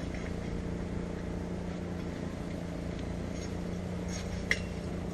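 A steady low mechanical hum, with a single sharp metallic clink about four and a half seconds in.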